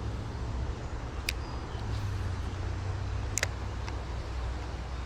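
Two sharp clicks about two seconds apart, typical of a spinning reel's bail being flipped open and snapped shut during a cast, over a steady low rumble.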